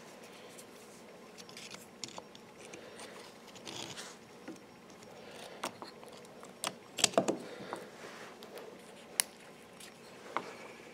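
Snap ring pliers working a steel snap ring onto the splined shaft of a Kubota RTV 900 CV axle, over its bearing: scattered small metal clicks and handling noises, with a cluster of sharp clicks about seven seconds in.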